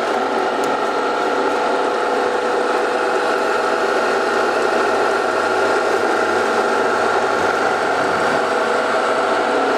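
TS-250U wood-pulp rolling machine running steadily, its drive giving an even mechanical hum with several constant tones.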